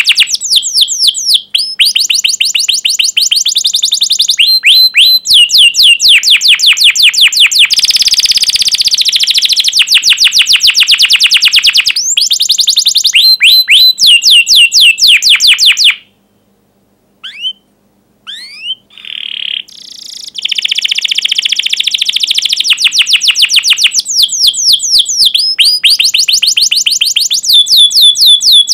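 Domestic canary singing long, loud trills of rapid, sharp falling 'cuit' notes, about eight to ten a second, switching to a different trill every few seconds. About sixteen seconds in it breaks off briefly, then comes back with a few single chirps and a buzzy trill.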